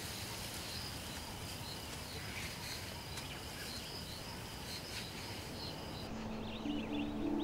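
Bush ambience with insects chirping: a steady high buzz with regular pulses. Near the end it cuts off and soft ambient music with held low notes comes in.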